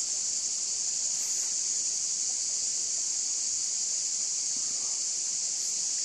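A steady, high-pitched chorus of insects in the summer forest, unbroken and even.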